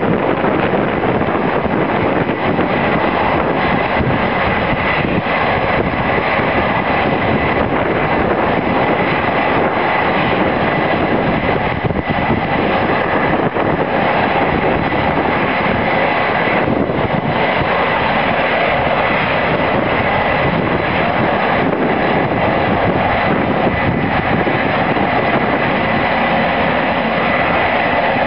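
F/A-18 Hornet's twin jet engines running at ground idle during preflight checks: a steady, loud rush with a constant high whine.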